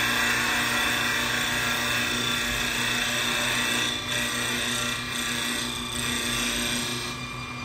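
CNC wood lathe running, turning a wooden spindle: a steady motor hum and whine with a hiss from the tool on the wood. The hiss dips briefly about four, five and six seconds in and eases off near the end.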